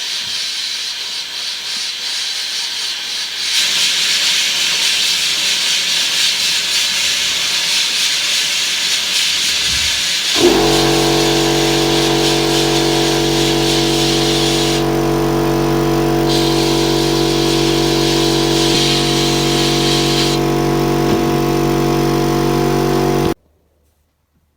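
Workshop power-tool noise during the de-rusting of a screwdriver bit: a steady, loud hiss, joined about ten seconds in by the steady hum of an electric motor. Both stop abruptly near the end.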